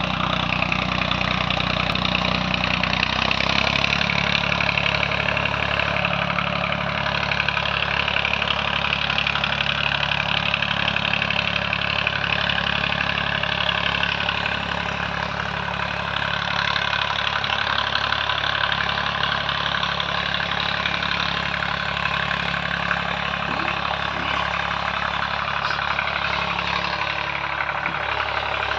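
Swaraj 744 tractor's three-cylinder diesel engine running steadily, its exhaust going through a silencer taken from an Eicher tractor.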